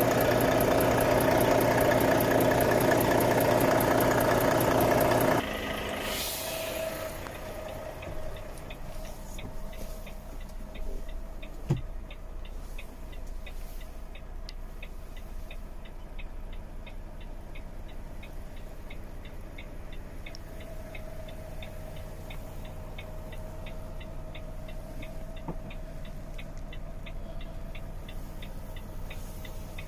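Volvo FH 540's 13-litre straight-six diesel idling, heard loud at the open front engine hatch, then dropping abruptly about five seconds in to a muffled low hum as heard inside the cab. Over the cab hum comes a steady, evenly spaced ticking, with a single knock near the middle.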